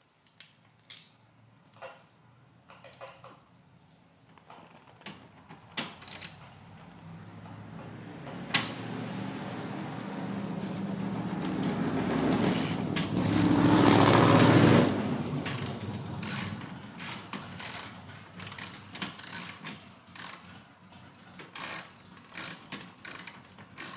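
Hand ratchet clicking in short runs as the diffuser's mounting bolts are run into the bumper, left loose rather than fully tightened. Partway through, a rushing noise swells, becomes the loudest sound and cuts off about fifteen seconds in.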